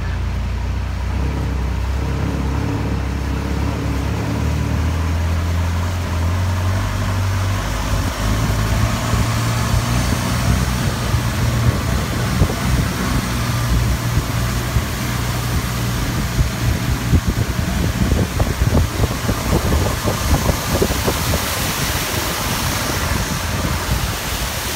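Tour boat's engine running steadily, its pitch stepping up about eight seconds in as the boat gets under way, with rough wind and water noise building from then on.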